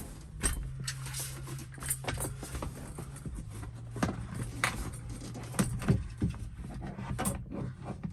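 Irregular clicks and knocks of tools and parts being handled, over a steady low hum that dips slightly in pitch about three and a half seconds in.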